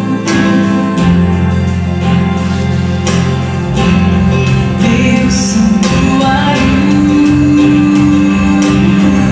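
Contemporary Christian worship song: a woman singing into a microphone over sustained instrumental accompaniment, holding one long note about seven seconds in.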